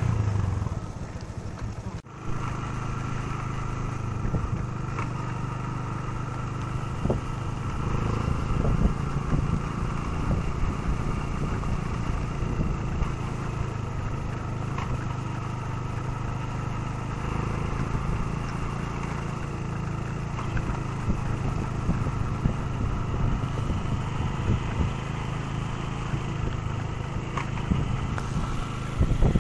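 Motorcycle engine running steadily at low, even speed, heard from on the bike, with a brief drop about two seconds in.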